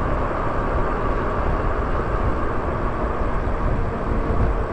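Steady rush of wind on the microphone and tyre noise from an e-bike riding along a paved street, with a faint steady whine underneath.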